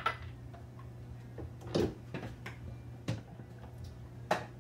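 Four light knocks and clinks, about a second or more apart, as a small glass bowl and a plastic blender jar are handled and set down on a kitchen countertop. A steady low hum runs underneath.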